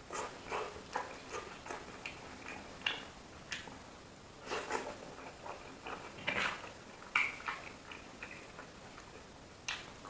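A person chewing food close to the microphone: irregular wet mouth clicks and smacks, a few every second.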